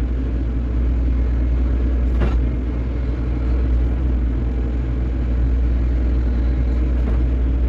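Hydraulic excavator's diesel engine running steadily under load, a low drone, while the bucket is worked across loose soil. A single short knock about two seconds in.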